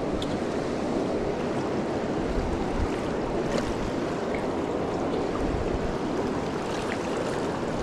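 Fast-flowing river water rushing steadily over rocks, with a few faint clicks and light bumps.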